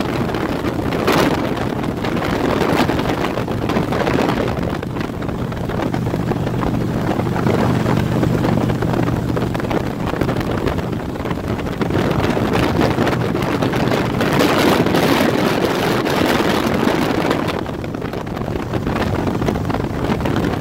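Motorcycle cruising at highway speed, with wind buffeting the microphone over a steady engine and road drone. The wind gusts louder about a second in and again around fifteen seconds.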